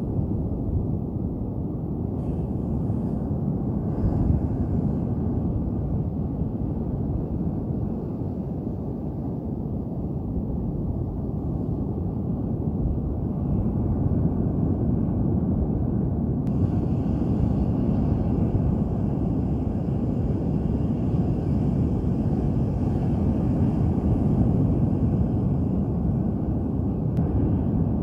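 Steady low rumble of a rough sea's surf breaking on the beach, mixed with wind, swelling slightly about halfway through.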